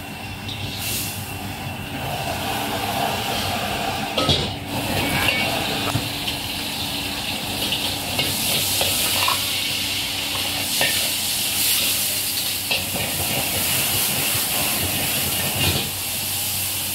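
Stir-frying in a wok over a gas wok burner: a steady burner hiss with food sizzling, and a metal spatula scraping and knocking against the wok a few times.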